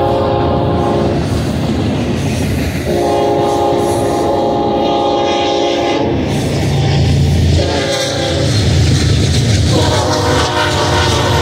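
Multi-chime locomotive air horn sounding long, long, short, long, the grade-crossing signal: the tail of one long blast, a second long blast, a short blast about eight seconds in, and a last long blast starting near the end. Under it runs the steady rumble and clatter of double-stack container cars rolling past on the rails.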